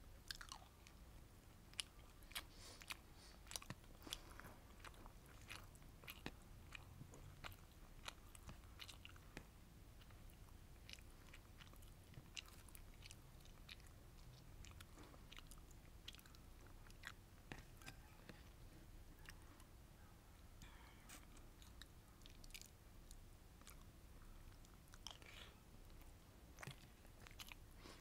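Quiet, close-miked chewing and biting of sweet and sour fish with rice: wet mouth clicks and smacks, thickest in the first ten seconds and again near the end.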